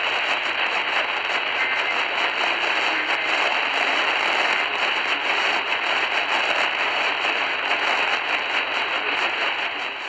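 AM radio tuned to 1300 kHz putting out a steady hiss with crackling static and no programme audio.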